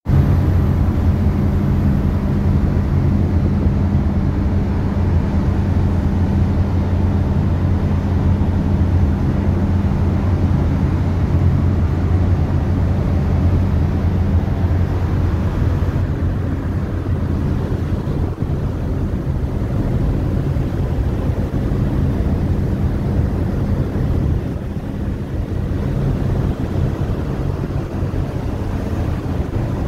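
A ferry's engines humming steadily under way, with wind rushing over the microphone; the low hum grows weaker about halfway through.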